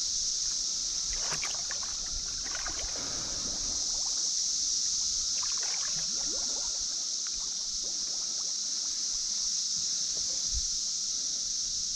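Steady high-pitched insect chorus with creek water trickling and lapping, and a few faint small knocks.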